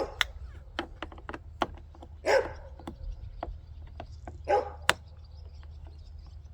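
A dog barks twice, about two seconds apart, over scattered light clicks and taps.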